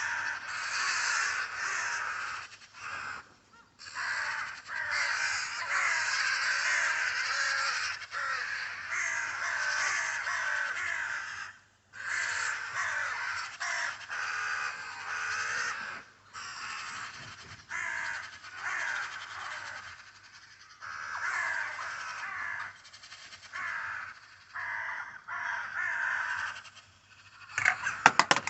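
Birds giving harsh, crow-like calls in near-continuous runs with short breaks. A few sharp clicks come near the end.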